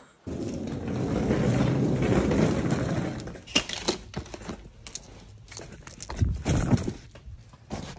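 A wheeled suitcase rolling over a hard floor as a steady grainy rumble for about three seconds, then a series of knocks and a few heavier thumps as the case is handled.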